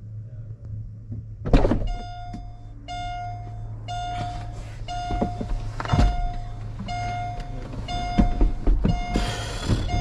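A car's electronic warning chime beeping steadily about once a second, over a low hum, with a couple of thuds and a brief rush of noise near the end.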